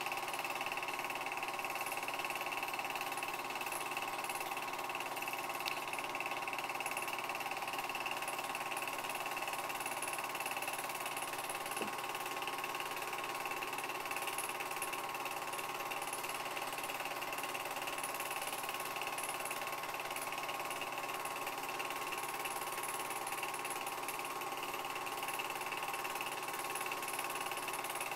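Film projector running: a steady mechanical whir with a fast, even clatter that does not change.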